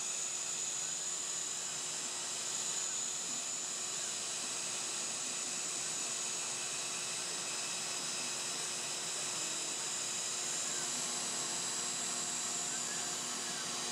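CNC router spindle cutting Sintra PVC foam board, a steady high whine over the even hiss of the vacuum running with it.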